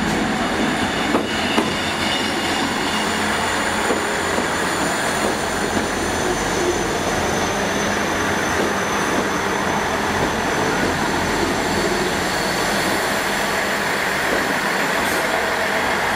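A Class 159 diesel multiple unit running slowly in along the platform close by, with a steady rumble of its underfloor diesel engines and wheels on the rails, and a thin high squeal as it slows.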